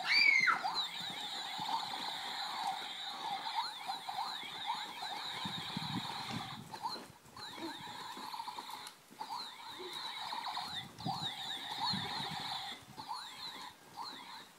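Trampoline springs squeaking in fast, dense chirps as children bounce, with a few short pauses. A loud squeal rises and falls right at the start.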